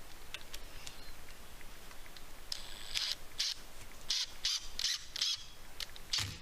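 A wood screw being turned into a screen-door frame, squeaking in about seven short bursts, one per turn, as it bites into a stripped hole packed with a matchstick.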